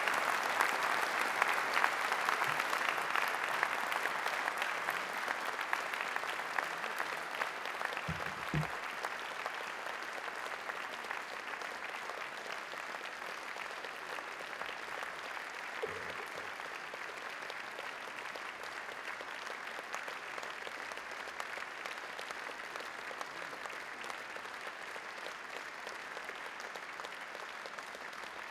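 Audience applauding steadily, loudest at the start and slowly fading.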